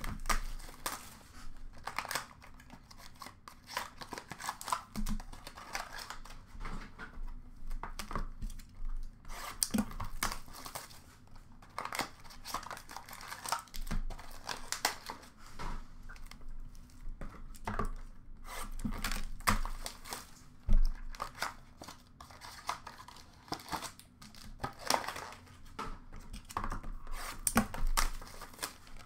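Foil trading-card pack wrappers being torn open and crinkled, with cardboard card boxes being opened and handled: irregular ripping and rustling, broken by a few knocks, the loudest about two-thirds of the way through.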